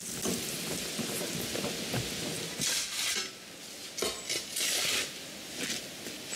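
Irregular scratchy scraping strokes of a hand tool worked over the ground, over a steady hiss.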